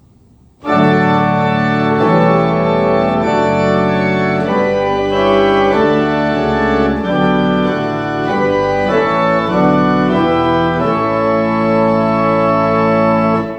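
1873 Speechly and Ingram two-manual pipe organ playing a hymn-like passage of sustained chords on a light, very bright and clear principal chorus: swell 8-foot Open Diapason and 4-foot Gemshorn coupled to the great's 4-foot Principal, Mixture and 8-foot Gamba, over a 16-foot pedal Bourdon. It starts about a second in and the final chord is released just before the end, leaving a short reverberant decay.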